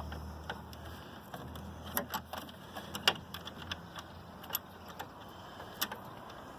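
Irregular light metallic clicks and taps as screws are driven with a hand tool to hold a grille light bracket in place.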